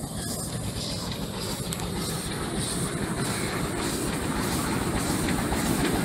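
Miniature steam locomotive hauling a train of passenger cars along the track, growing steadily louder as it approaches.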